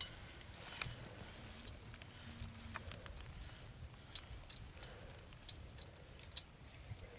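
A rusty steel trap being handled in dry grass: a few sharp metallic clicks, one at the start and three more from about four seconds in, over faint rustling.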